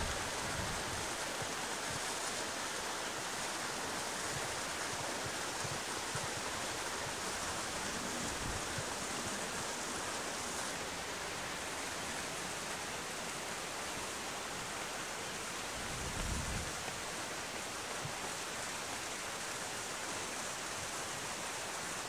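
Steady rush of flowing river water, with a couple of brief low rumbles about a third of the way in and again near the end.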